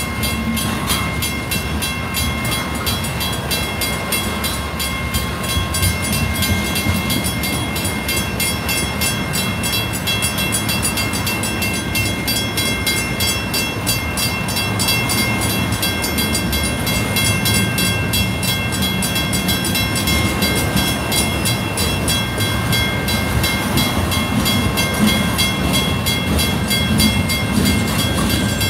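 Freight cars rolling steadily past: centerbeam lumber flats, tank cars and covered hoppers, their steel wheels rumbling and clicking over the rails. Over it a grade-crossing bell rings in fast, even strokes.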